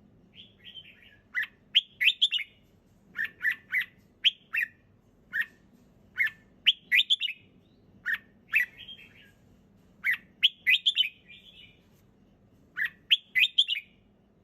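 Red-whiskered bulbul singing: short, bright phrases of two to four quick notes, repeated about every second with brief pauses between them.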